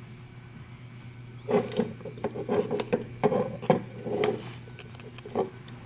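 Irregular rubbing and knocking of camera parts being handled, in a busy cluster from about a second and a half in to past four seconds, with one more knock near the end.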